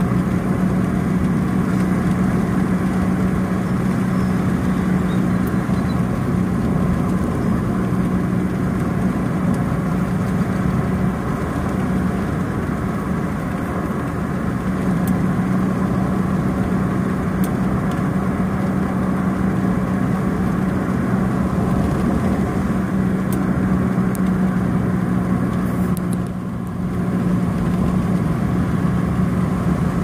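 Car engine and tyre noise heard from inside the cabin while driving, a steady drone with a low hum that holds throughout. It dips briefly near the end.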